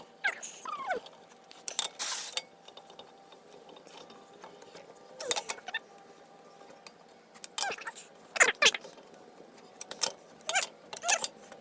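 Lug wrench clinking and scraping on the wheel's lug nuts in several short bursts as they are tightened in a cross pattern.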